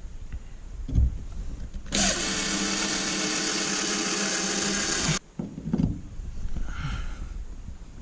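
A thump about a second in, then an electric drill runs at a steady speed for about three seconds and stops abruptly, drilling out a stripped tapped hole in soft aluminum deeper so that new threads can be cut.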